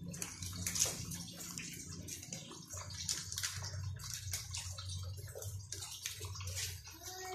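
Two cats eating from a plastic bag: the thin plastic crinkles irregularly as they push their heads into it and chew, over a steady low hum.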